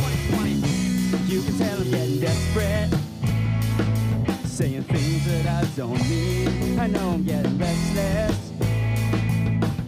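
Rock band playing live: electric guitars over a drum kit, with a lead voice singing.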